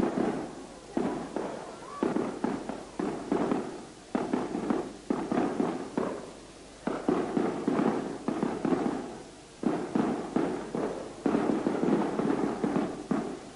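Fireworks going off in a rapid, uneven string of bangs, a few a second, each dying away quickly.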